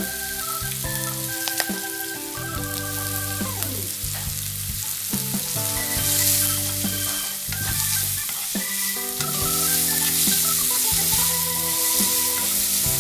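Chopped onions, garlic, ginger and green chillies sizzling in oil in a non-stick pan, stirred and scraped with a wooden spatula. The sizzle grows louder about halfway in, once the stirring gets going. Background music plays throughout.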